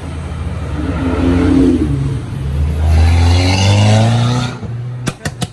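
A sports car accelerating hard past on the street, its engine note climbing steadily in pitch for a couple of seconds before dropping away. Several sharp pops follow near the end.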